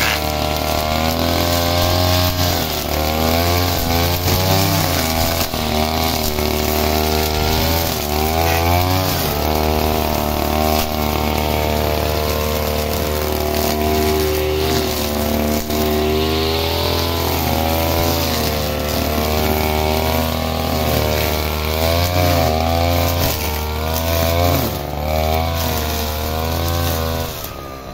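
VST 242 HD brush cutter's 2.2 HP two-stroke engine running hard while its nylon-line head cuts grass and weeds. The pitch swings up and down again and again, and the sound drops off near the end.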